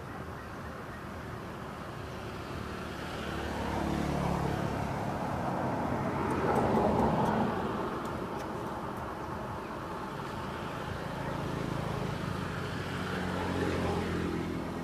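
Motor vehicles going past: engine hum and road noise swell and fade, loudest about seven seconds in, with another pass building near the end.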